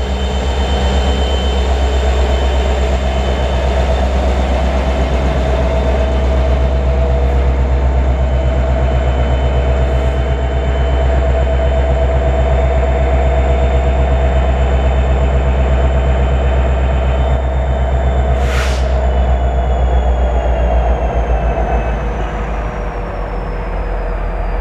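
Norfolk Southern diesel locomotives running light, with no cars, rumbling past and pulling away, the low engine rumble easing near the end. A grade-crossing warning bell rings steadily.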